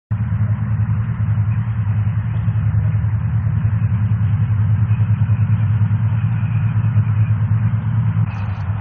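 A large engine running steadily: a low, rapidly pulsing rumble.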